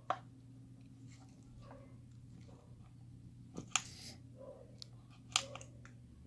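A few small sharp clicks and taps from a lock and its key being handled, spaced irregularly: one at the start, two close together a little past the middle, and a louder one near the end, over a steady low hum.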